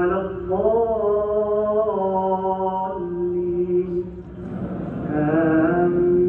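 Imam's melodic Quran recitation during tarawih prayer: a single man's voice chanting long held notes that slide slowly up and down, with a brief pause about four seconds in before the next phrase.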